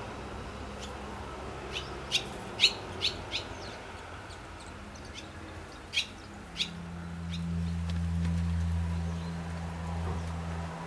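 Barn swallows at their mud nests giving short, sharp chirps: a quick run of about five a couple of seconds in, then two more about six seconds in. A low steady hum swells underneath in the second half.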